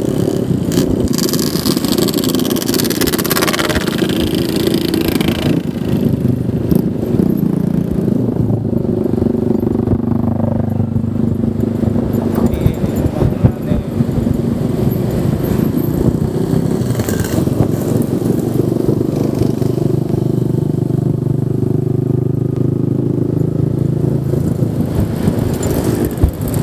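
Honda Vario 125 scooter's single-cylinder engine running steadily at cruising speed, with wind noise over the microphone.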